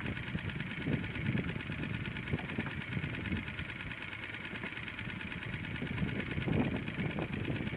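Small fishing boat's engine idling steadily, with uneven low rumbles coming and going underneath.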